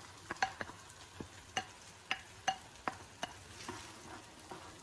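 A plastic spatula clicking and scraping as thick gravy is scraped from a bowl and spread in a nonstick frying pan, with faint sizzling underneath. The light clicks come about two or three a second.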